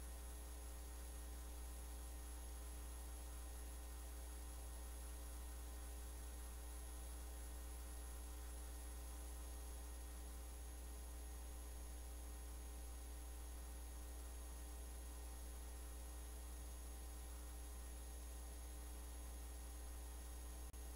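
Faint, steady electrical mains hum with a light hiss, unchanging throughout.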